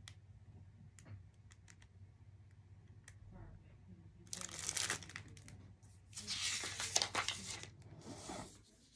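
Plastic bags of nail-art supplies crinkling as they are rummaged through, in two bursts about four and six seconds in, with a few faint clicks before.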